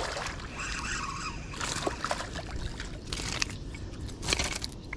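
Fishing reel being cranked to bring a hooked fish in toward the boat, with scattered sharp clicks over a steady rushing noise.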